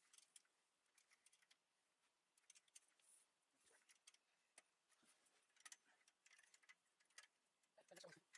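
Near silence with faint, scattered small clicks and ticks from handling the metal desk frame bars and hardware during assembly.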